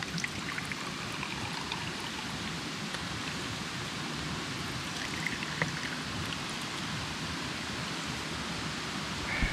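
Steady rain falling, an even hiss with a few faint scattered ticks of drops.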